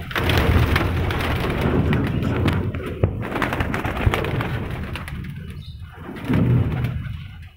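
Domestic pigeons cooing while several flap their wings and fly about close by; the wing noise is thickest over the first few seconds and eases later.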